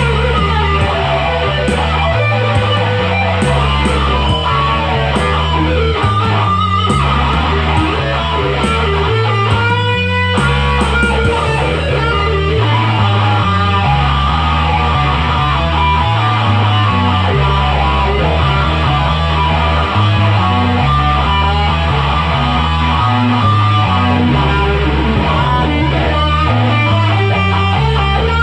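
Instrumental rock music: electric guitar playing over a steady, changing bass line, with a quick run of rapidly repeated notes about ten seconds in.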